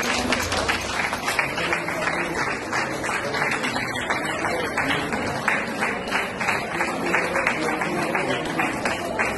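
Audience applause: steady, dense clapping from many hands.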